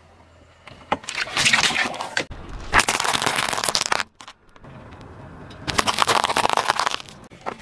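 A car tyre rolling over and crushing small objects on asphalt, heard as three separate bursts of crunching and crackling that start and stop abruptly. The last burst, near the end, is a hard candy cane cracking under the tyre.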